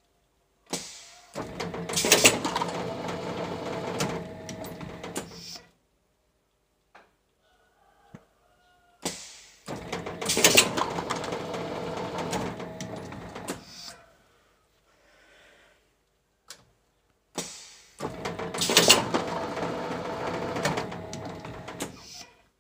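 Plastic bottle blow moulding machine working through three moulding cycles about eight seconds apart. Each cycle is about five seconds of mechanical clatter and hiss over a steady hum, with a sharp loud burst about a second in.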